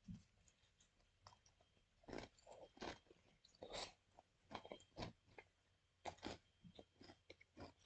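A mouthful of white-bread sandwich filled with Cheez-It crackers being chewed, with faint, irregular crunches.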